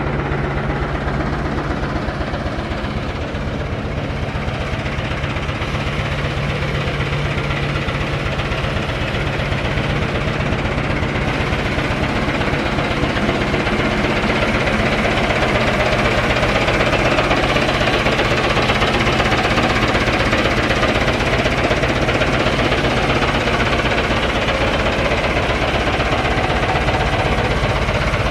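Diesel engine of a 1978 JCB 3C Mk3 backhoe loader running with a fast, even knocking beat, growing gradually louder and harsher over the first half and then holding steady.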